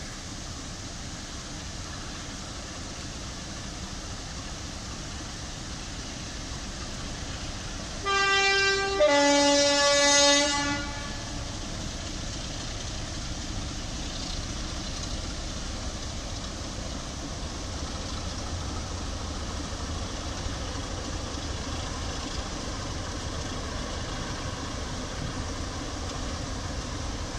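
Two-tone horn of a British Rail Class 33 'Crompton' diesel locomotive: a higher note about eight seconds in, then a longer, lower note straight after. The low running of the Class 33 diesel engines then grows as the train draws near and passes.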